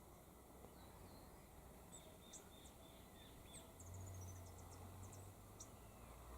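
Faint outdoor ambience with distant birds chirping: short high chirps and a quick run of repeated short notes from about two seconds in. A low hum comes in about four seconds in.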